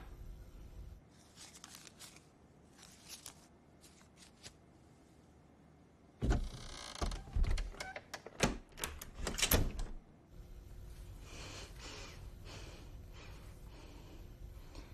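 Quiet room tone, then about six seconds in a few seconds of sharp knocks and clicks from a door and its latch being handled.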